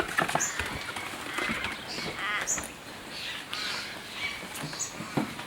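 Birds calling: short high chirps repeating about once a second, with a couple of harsher, rasping calls in the middle.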